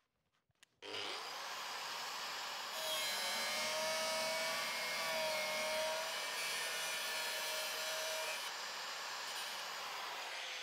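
Angle grinder starting up about a second in, then cutting through the sheet steel of a car's front rail panel. A steady whine rides over the grinding hiss and is loudest in the middle of the cut. Near the end it eases back to a lighter cut.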